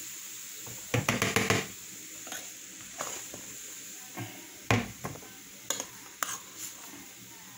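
Spoon knocking and scraping against a cooking pot as locrio, a rice dish, is scooped out: a quick run of clatters about a second in, then single knocks every second or so.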